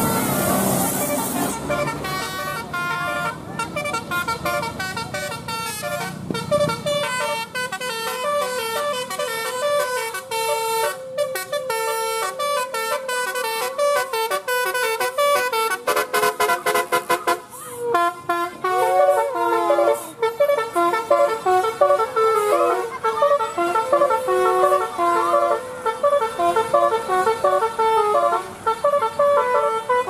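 A bus's multi-tone telolet musical horn playing a long tune of quick stepped notes, with a stretch of rapid clicking pulses around the middle and a few sliding notes just after. A loud rush of passing-vehicle noise comes at the very start.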